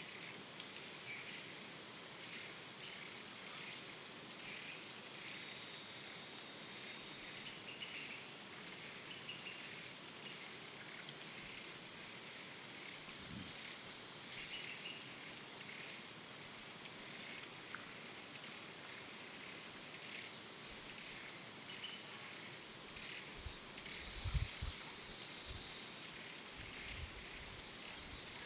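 Jungle ambience: a continuous high, steady drone of insects such as crickets, with scattered short bird chirps over it. A few soft low thumps come near the end.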